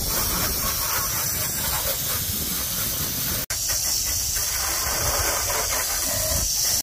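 Water hose spraying a hard jet onto a diamond-plate boat deck and the cowlings of twin outboard motors: a steady hiss and splatter of water, cut off for an instant about halfway through.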